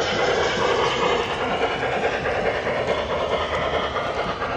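G-scale model steam locomotive pulling tank wagons along garden track, making a steady running clatter of wheels on rail.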